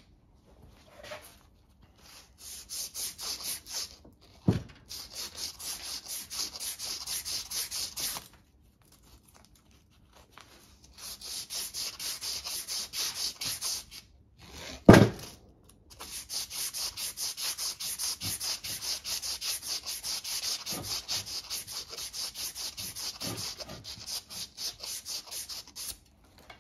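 A strip of abrasive cloth pulled back and forth around the steel shaft of a Chrysler 8 3/4 drive axle: rhythmic rubbing strokes, several a second, in runs of a few seconds with short pauses. Two sharp knocks break in, about four seconds in and a louder one near the middle.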